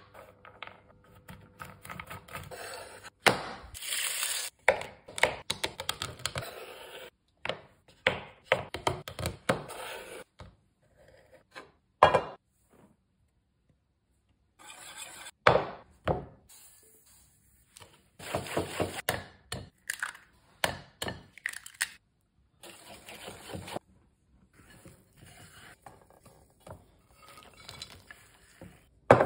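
Kitchen prep sounds in short edited clips: a knife, bowls and utensils knocking on a wooden worktop and ingredients tipped into a bowl for cookie dough. Irregular knocks and clatter, with brief silent gaps between clips.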